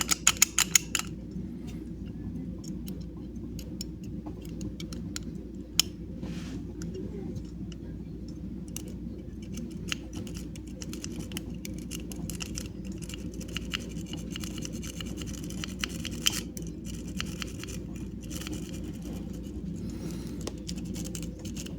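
Paperclip rake scraping and clicking inside a disc padlock's keyway as it is raked back and forth: rapid, irregular small metallic clicks and scratches. A quick flurry of louder clicks comes in the first second, and single sharper clicks come about six and sixteen seconds in, over a steady low hum.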